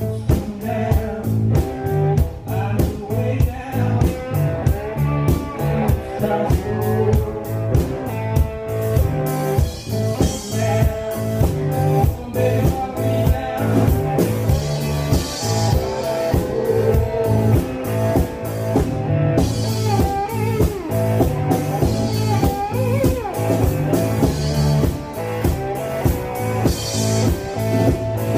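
Live blues band: an electric cigar box guitar playing a driving riff over a steady drum kit beat, with a few notes gliding in pitch in the second half.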